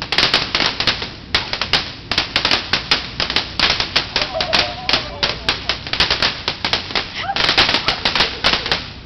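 Crackling fountain firework spraying sparks, a dense, rapid run of sharp crackles and pops that starts suddenly and stops near the end.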